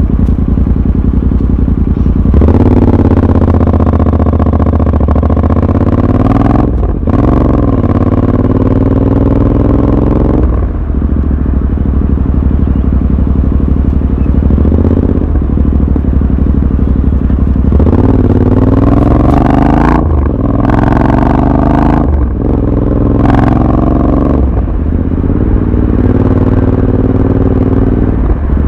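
Royal Enfield Continental GT 650's 648 cc parallel-twin engine running steady, then pulling away about two seconds in and accelerating up through the gears, its pitch rising in each gear and dropping briefly at each shift. Around eighteen seconds it eases off and then accelerates through the gears again.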